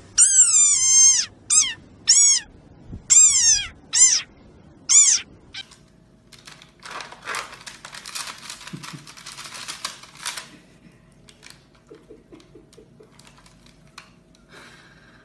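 A desert rain frog squeaking six times in the first five seconds: shrill calls that each fall in pitch, the first the longest. After that comes a few seconds of soft clicking and rustling from nuts stirred in a glass bowl where a chipmunk is feeding.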